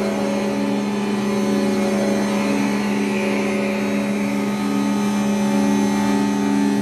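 A steady, loud drone of several held low tones with a hiss over them, from a live experimental music score. A higher tone comes in more strongly near the end.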